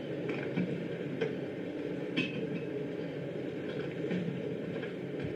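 Steady low rumble of a boat's engine at sea, with short high squeaks and clinks scattered through it.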